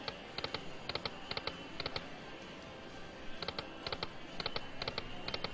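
Aristocrat Wicked Winnings IV video slot machine spinning: short, sharp clicks about half a second apart as the reels stop one after another, in two runs for two spins, over steady background noise.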